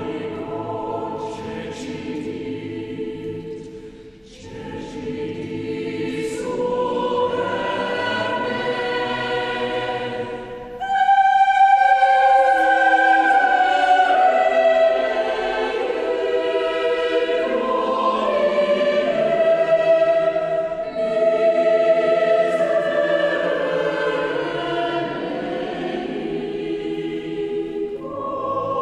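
Mixed choir singing a slow sacred choral piece in phrases that swell and fall. The sound dips softly about four seconds in, then comes in suddenly louder and higher about eleven seconds in.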